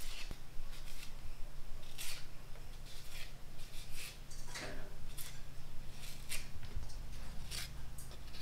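A cleaver blade cutting and shaving the peel off green bananas: a string of short, crisp scraping cuts at uneven intervals.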